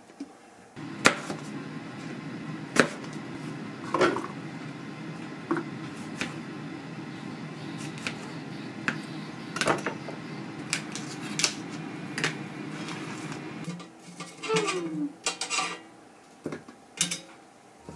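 Kitchen prep sounds: scattered clicks and knocks of a knife slicing tomatoes on a plastic cutting board and of tongs and utensils against an air fryer basket. A steady low hum runs underneath and drops away about 14 seconds in.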